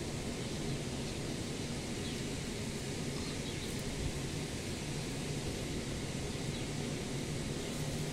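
Steady outdoor background noise with a constant low hum, unchanging throughout.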